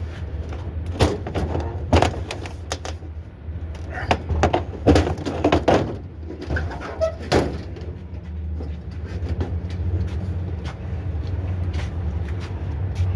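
Scrap metal clanking and banging in a run of irregular knocks, busiest in the middle, over a steady low engine idle.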